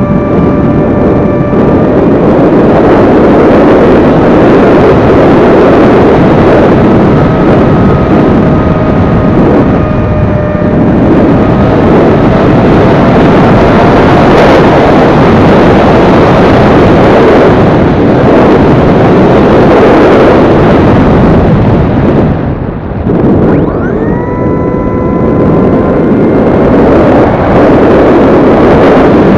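Heavy wind rush buffeting the onboard camera of an XK A1200 RC plane in flight, with the whine of its electric motor and propeller over it. The whine drops out a little over two thirds of the way through and comes back with a short rising glide about a second later.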